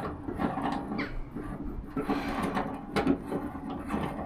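A thread tap cutting a new thread into a hole in metal: irregular scraping and clicking as the tool works round.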